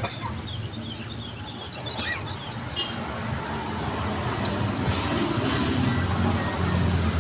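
City road traffic: a steady hum of passing vehicles, with a low rumble swelling near the end and a few brief high chirps in the first couple of seconds.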